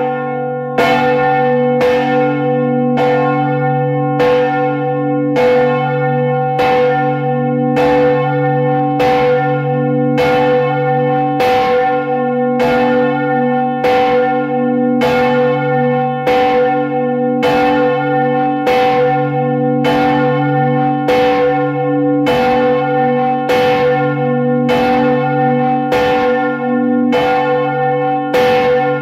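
Large church bell swinging in its frame, its clapper striking at an even pace of about three strokes every two seconds, the bell ringing on between strokes. Heard up close in the belfry.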